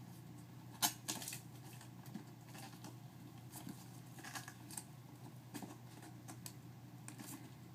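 Hands working inside a cardboard laptop box, with scattered scrapes, rustles and clicks of the cardboard and packing inside, and one sharp click about a second in.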